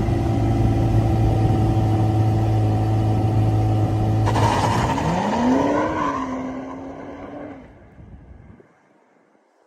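Sports car engine held at steady high revs, then released: the note changes suddenly, dips and climbs in pitch as the car pulls away, and fades into the distance, typical of a launch-control start.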